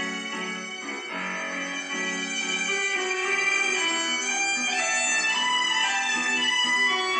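Violin playing a melody of held notes, in and around its low register.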